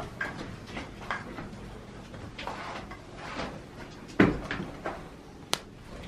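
Scattered knocks, taps and rustles of capuchin monkeys clambering on and handling plastic toys, with one loud thump a little past four seconds in and a sharp click about a second later.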